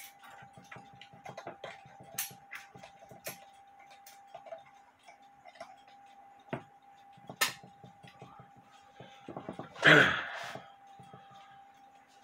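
Scattered metal clicks and knocks as locking pliers (vice grips) are worked and tightened onto the shank of a screwdriver, with a faint steady tone underneath and a louder rasping noise about ten seconds in.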